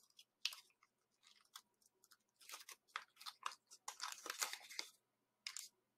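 Origami paper being folded and creased by hand: a string of short, crisp paper crackles and scrapes, busiest in the middle.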